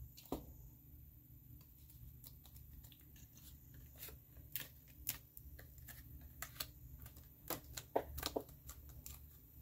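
Cardstock being handled and pressed together on a craft mat: scattered soft taps, clicks and paper rustles, with a quicker cluster of taps a little before the end, over a steady low hum.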